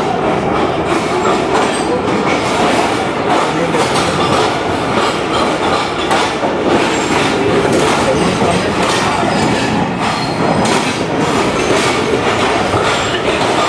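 Pakistan Railways passenger train rolling slowly along a station platform: a steady rumble with the wheels clattering over the rail joints.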